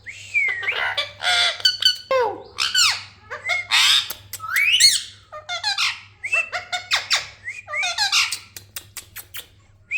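Indian ringneck parakeet squawking and chattering: a rapid string of shrill calls that sweep up and down in pitch, mixed with sharp clicks, easing off briefly near the end.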